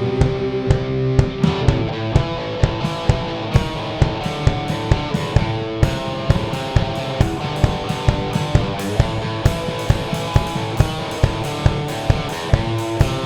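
Rock song with electric guitar and a drum kit keeping a steady beat.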